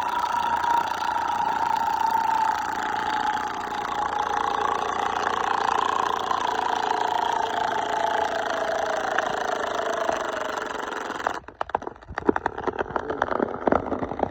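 Chainsaw running in a cut, its pitch slowly sinking under load. About eleven seconds in it stops and a quick run of cracks and crashes follows as the felled tree goes over and comes down through its branches.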